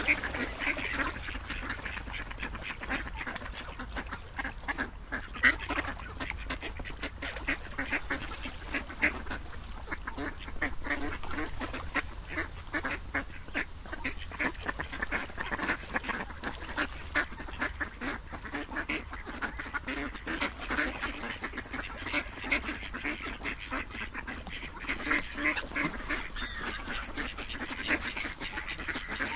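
A flock of ducks quacking, many short calls overlapping without a break.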